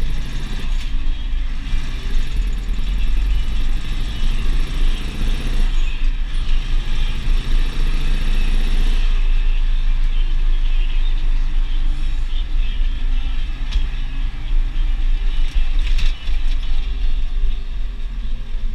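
Deutz DX 4.70 tractor's air-cooled diesel engine running under way, heard from inside the cab with cab rattle, the tractor pulling a loaded slurry tanker. The engine note lightens about nine seconds in.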